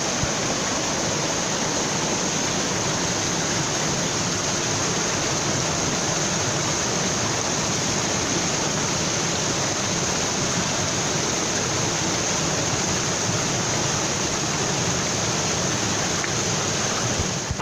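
Steady, even rush of running water, with no change in loudness throughout.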